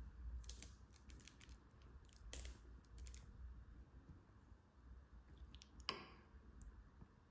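Faint short sputters from a squeezed plastic bottle of Buldak hot sauce drizzling onto pasta, then a single clink of a metal spoon against the ceramic bowl about six seconds in.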